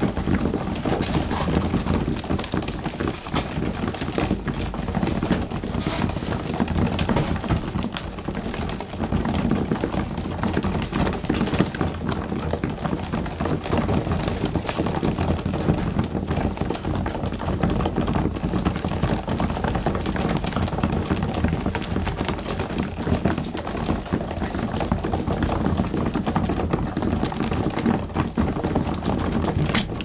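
A flock of young racing pigeons pecking grain off a loft floor: a dense, steady clatter of beak taps and scattered seeds.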